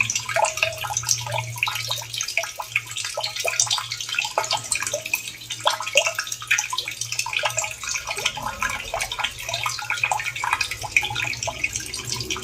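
Running water trickling and splashing in a continuous patter of small droplets, with a steady low hum beneath it.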